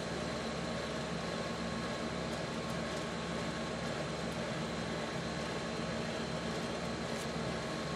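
Steady room tone: an even hiss with a low hum, with no handling noise or other events.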